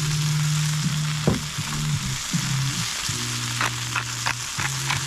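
Pieces of Murray cod fillet frying in oil on a griddle, a steady sizzle. From about three and a half seconds in comes a quick series of clicks as seasoning is ground or shaken over the pan.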